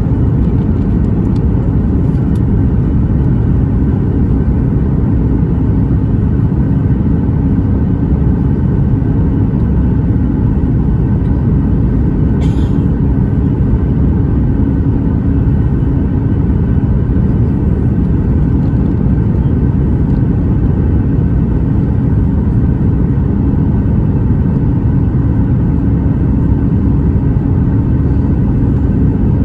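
Steady cabin rumble of a Boeing 737 MAX 9 heard from an economy window seat: engine and airflow noise with a low steady hum. A single brief click about twelve seconds in.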